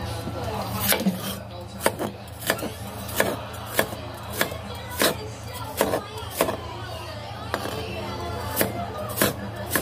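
A Chinese cleaver chopping thick kaijo (Chinese mustard green) stems on a wooden chopping board: a sharp knock on the board about every two-thirds of a second, over background music.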